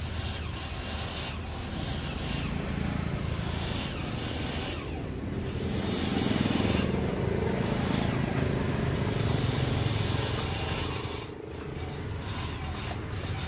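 Small single-cylinder step-through motorcycle engine, converted to run on LPG, running steadily. It gets louder for a few seconds in the middle, then drops back.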